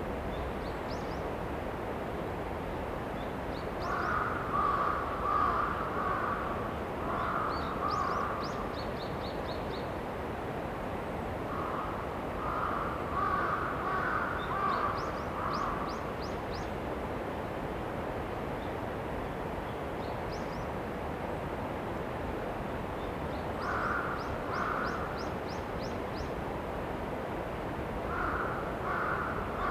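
Crows cawing in short series of harsh calls, four bouts with pauses between, over a steady outdoor hiss, with thin high chirps of small birds in the background.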